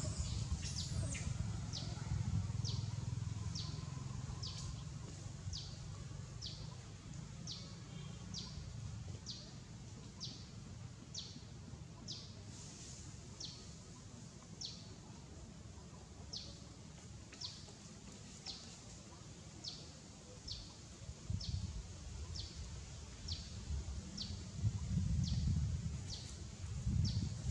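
A small bird repeating a short, high, falling chirp at a steady pace of about three calls every two seconds, over a low rumble on the microphone.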